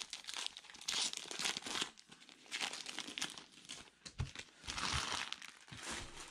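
Topps Heritage baseball card pack wrapper torn open and crinkled by hand, in several uneven bursts of rustling, with two soft low knocks about four and five seconds in.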